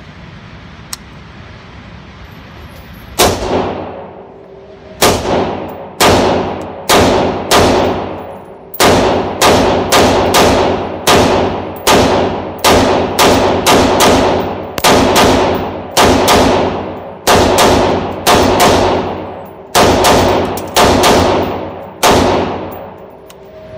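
Colt 6920 M4 carbine in 5.56 firing a long string of single semi-automatic shots, about twenty of them at roughly one or two a second, starting about three seconds in. Each shot rings on in the echo of an indoor range.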